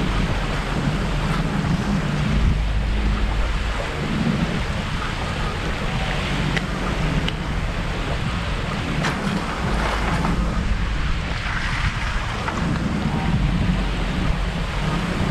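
Wind gusting across the microphone with a low rumble, over choppy lake waves washing against the shore. A few faint clicks are heard in the middle.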